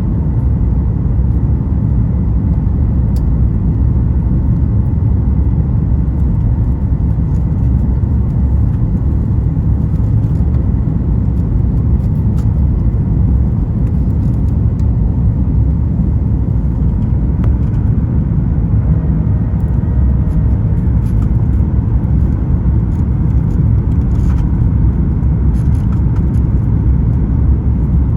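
Steady cabin drone inside a Boeing 737 MAX 9 airliner: a low rumble of engine and airflow noise with faint steady tones above it, unchanging throughout.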